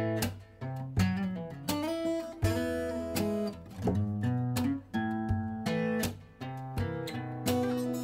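Background music: strummed and plucked acoustic guitar.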